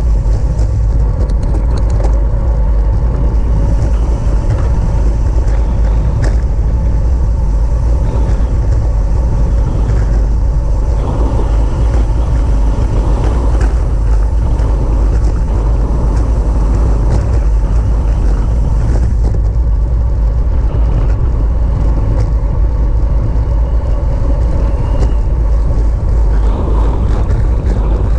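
Loud, steady wind rushing over the microphone of a camera on a racing bicycle moving at speed.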